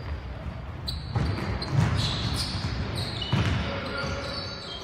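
A basketball bouncing on a wooden sports hall floor, a few heavy thumps at irregular spacing, with short high squeaks of players' trainers on the floor, in a large echoing hall.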